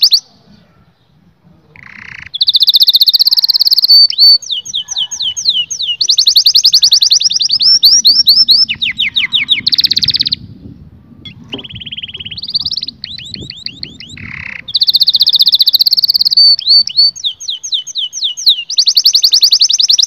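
Domestic canary singing: long, fast trills and rolling phrases of rapidly repeated notes, broken by short pauses about a second in and again about halfway through.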